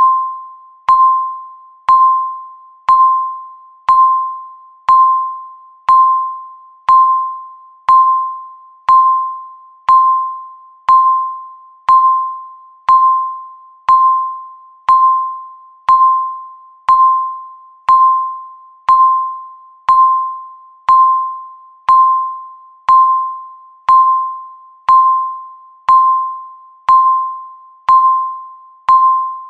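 Countdown timer beeping once a second: a single high electronic ding on one steady pitch, starting sharply and fading away before the next one.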